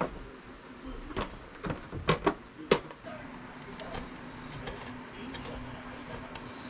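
Several sharp knocks and clacks in the first three seconds, then a steady low hum.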